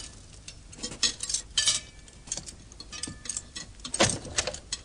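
Spoons, cups and china clinking on a laid table as crockery is handled: a run of short, light clinks and knocks, the sharpest about a second and a half in and again near the end.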